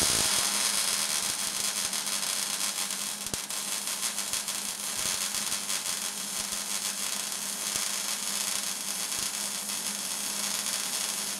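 MIG welding arc running a bead on thin metal strips: a steady, crackling sizzle without heavy popping, the sound the welder names as the sign of correct settings, and the weld comes out good.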